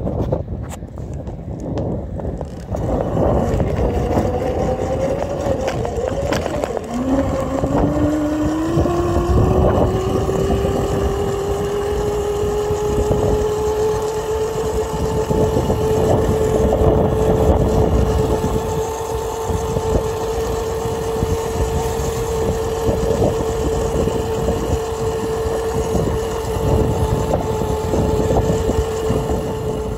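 Razor E200 electric scooter under way: its motor and drive give a steady whine that rises in pitch as the scooter speeds up over a few seconds, then holds level at a cruise of about 12 mph. Wheel rumble and wind noise run under it.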